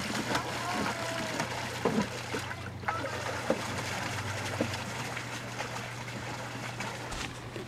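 Pedal boat's paddle wheel churning the lake water as it is pedalled along: a steady splashing and trickling.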